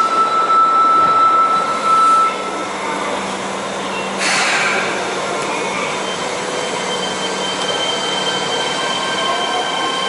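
Subway train running through the underground station: a steady rumble with held whining tones from the motors and wheels, shifting in pitch, and a sudden rush of noise about four seconds in.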